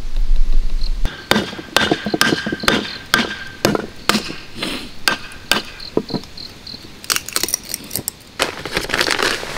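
Repeated sharp strikes of a hatchet on firewood, about two or three a second, a few with a short metallic ring.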